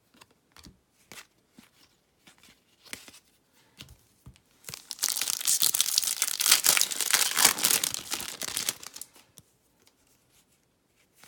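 Light ticks of trading cards being handled, then about four seconds of loud crinkling and tearing as a Topps baseball card pack's wrapper is ripped open.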